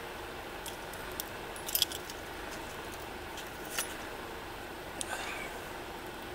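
Bunch of keys and keychains on a ring jangling in a hand, as a few short metallic clinks, loudest about two seconds in, over a faint steady hiss.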